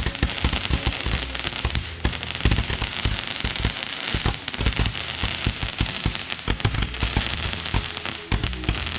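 Fireworks going off all around: a dense, irregular run of bangs and crackling pops with no pause.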